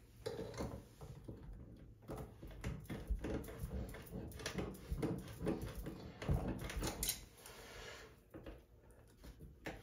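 Faint handling sounds: irregular small clicks, knocks and scrapes of pliers and hands working the metal parts of a tub faucet valve.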